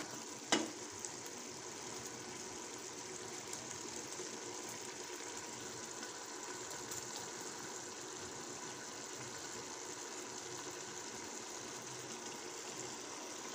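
Keema simmering in its remaining liquid in an open pressure cooker, a steady hiss as the water cooks off. A single knock about half a second in, from the wooden stirring spoon against the pot.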